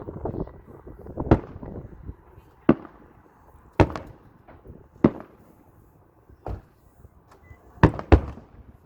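Aerial fireworks shells bursting: about seven sharp bangs, roughly a second or so apart, the last two close together near the end, with a rumble in the first two seconds.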